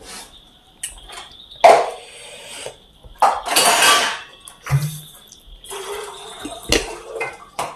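Close-up eating sounds of chowmein noodles: several wet slurps and chewing, with cutlery clinking on the plate.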